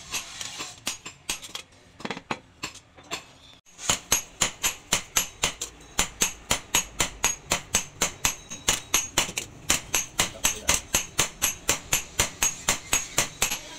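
Hand hammer beating a red-hot leaf-spring steel blade on a round post anvil as the blade is forged. A few scattered blows come first, then fast, even strikes at about four a second from a few seconds in.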